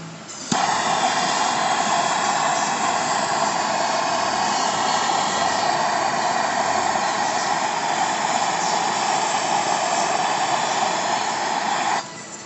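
Heat gun blowing hot air onto a car quarter panel's bonded seam to soften the adhesive, a steady rushing hiss. It switches on with a click about half a second in and cuts off abruptly near the end.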